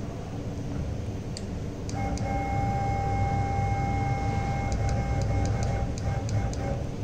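CNC router running: a steady low hum, with a steady high-pitched whine that starts about two seconds in and breaks off just before the end, and a few faint ticks near the end.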